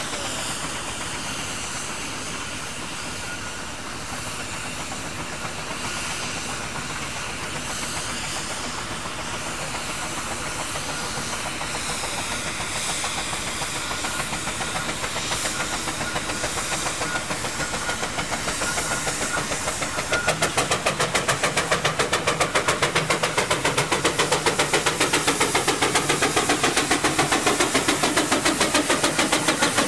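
A heritage vehicle engine running, with a hiss at first. About twenty seconds in, a rapid, steady beat sets in and the sound gets louder.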